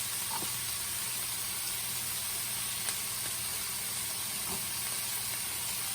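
Chicken, mushrooms and onion sizzling steadily in a frying pan.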